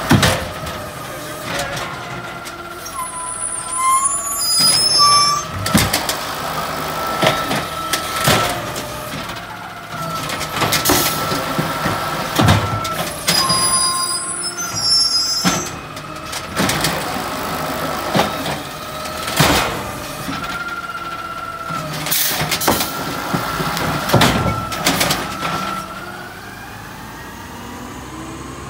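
Automated side-loader garbage truck emptying curbside carts: the hydraulic arm whines as it cycles, carts knock and bang against the hopper again and again, and air hisses twice. Near the end the engine note rises as the truck pulls forward.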